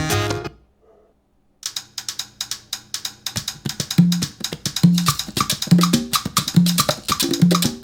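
Music played through a Yamaha NS-C120 centre-channel loudspeaker. One track stops about half a second in, and after about a second of silence a drum-led track starts with quick percussion hits. A low bass note repeating roughly once a second joins about three seconds later.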